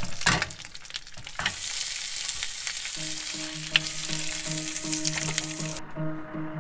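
Food sizzling and frying in a pan, with a few sharp clicks of tongs against the pan and the pan being tossed; the food is leftover ribs being reheated. About halfway through, background music with a steady pulsing low tone comes in, and the sizzle stops near the end.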